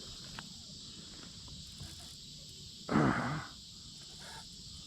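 Steady high-pitched insect drone from the riverbank, with a short loud vocal grunt or exclamation about three seconds in.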